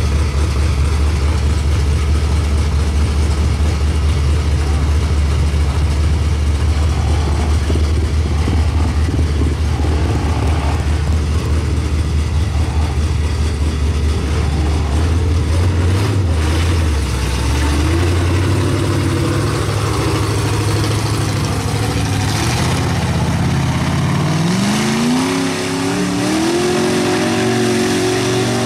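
Big-block Chevrolet V8 in a lifted mud truck idling with a deep, steady rumble for a long stretch. Over the last few seconds it revs up in a long steady climb in pitch as the truck powers through the mud pit.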